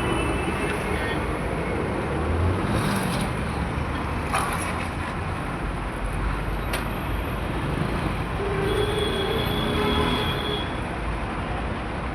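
Steady road traffic: a continuous wash of vehicle engines and tyres. About eight and a half seconds in, a steady tone sounds for about two seconds.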